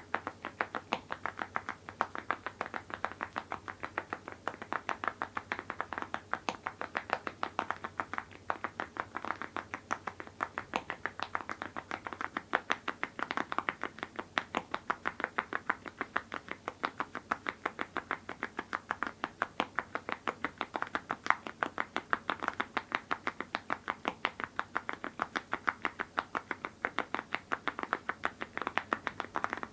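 Typing on a mechanical keyboard with full-metal (aluminium) keycaps on linear switches: a steady, fast run of sharp keystroke clacks, several a second.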